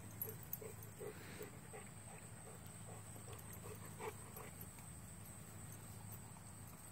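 Dog panting faintly in quick, even breaths, about three a second, dying away after about four seconds.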